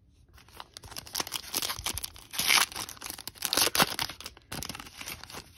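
Foil trading-card pack wrapper being torn open and crinkled by hand: a run of crackling tears, loudest in the middle.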